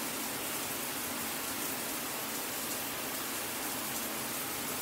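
Steady, even hiss of background noise with nothing else happening.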